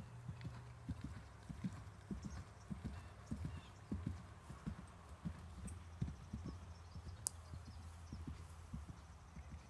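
Hoofbeats of a grey horse cantering on grass: a quick, uneven run of low thuds, with a single sharp click about seven seconds in.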